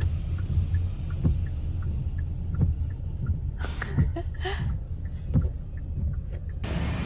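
Steady low rumble of a car being driven, engine and road noise heard from inside the cabin, with a short swish a little past halfway.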